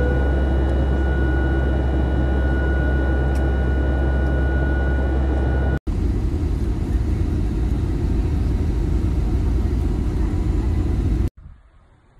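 Airliner cabin noise: a loud steady engine rumble with a thin steady whine. About six seconds in it cuts to a louder, rougher low rumble, and near the end it drops away to quiet outdoor ambience.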